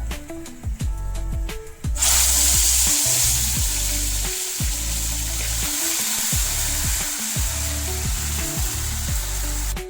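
Tomato, ginger and garlic masala paste hitting hot oil in a kadai: a loud sizzle that starts suddenly about two seconds in and keeps going steadily, as the wet paste fries. Background music with a repeating bass line plays throughout.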